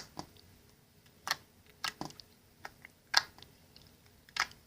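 Clear slime squeezed and worked by hand, giving sharp, irregular clicks and pops, about seven of them.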